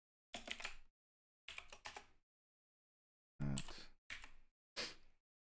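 Five short bursts of computer-keyboard typing, each cut off abruptly into dead silence.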